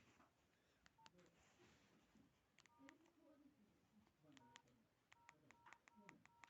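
Nokia 1616 mobile phone keypad being pressed, faintly: each press gives a small click and a short two-note key beep. There is one press about a second in, a few in the middle, then a quick run of about six presses near the end. A faint voice murmurs underneath.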